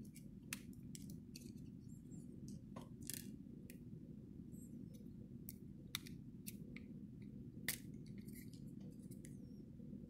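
Sharp clicks and snaps from a 3D-printed plastic transforming figure as its parts are twisted and clicked into new positions by hand, irregular and a few each second, the loudest about half a second, six seconds and seven and a half seconds in. A steady low hum runs underneath.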